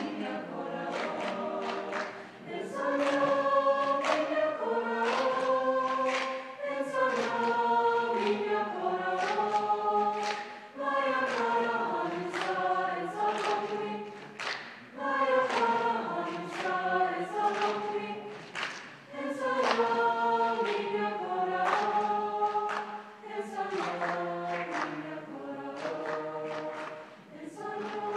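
High school choir singing chords in several parts, in held phrases of a few seconds each with brief breaks between them.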